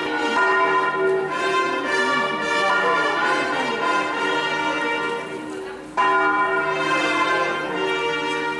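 Cathedral church bells swinging in a full peal, five bronze bells of an electrified six-bell set in E-flat ringing over each other with long steady tones. After a short dip, a loud new stroke comes in about six seconds in.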